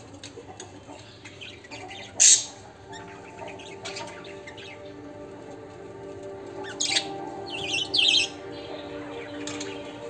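Budgerigars chirping and chattering, with a loud squawk about two seconds in and a burst of warbling chatter near eight seconds, over soft background music.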